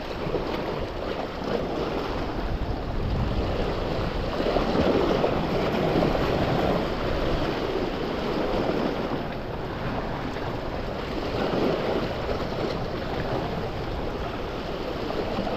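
Sea waves washing against shoreline rocks, a steady rush of water that swells and eases a couple of times.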